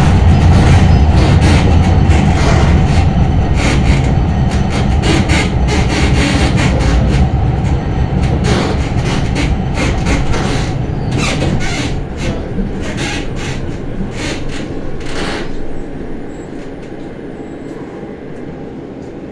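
Tram running, heard from inside: low rumble of the running gear with many clicks and rattles, fading steadily as it slows, the rumble dying away from about two thirds of the way through.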